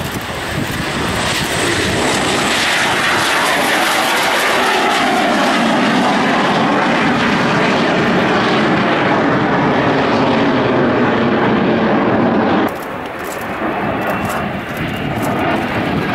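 Gloster Meteor T7's twin Rolls-Royce Derwent turbojets roaring at takeoff power. The roar builds over the first couple of seconds and then holds loud and steady. About 13 seconds in it drops sharply and then swells again as the jet passes overhead.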